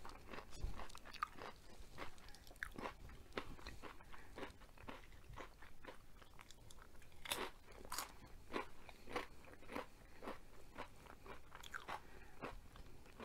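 A person chewing crunchy fried food: a steady run of crisp crunches and wet mouth clicks, with a few louder crunches a little past the middle.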